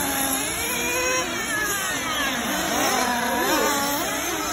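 Several radio-controlled off-road race cars running on a dirt track, their motors overlapping and rising and falling in pitch as they accelerate and slow through the course.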